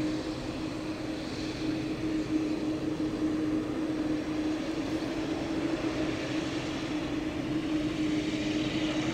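Boeing 787-9 jet engines running at taxi power, heard from the side of the runway: a steady rushing noise with a constant hum.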